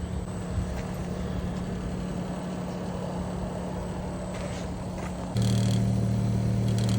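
Air conditioner outdoor unit running with a steady low hum, which jumps clearly louder about five seconds in. This is the nuisance noise the unit was making, which a small inserted piece later quiets.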